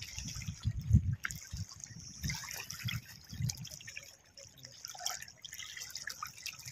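Water splashing and lapping in the shallows as a hooked rohu is drawn in to the bank. There are low thumps in the first second and a half.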